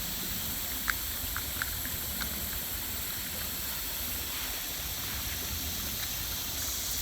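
Steady outdoor swamp ambience: an even hiss over a low rumble, with a few faint ticks about a second or two in.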